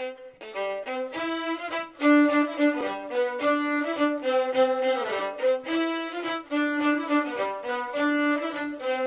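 Background music: a violin playing a melody of quick, short notes.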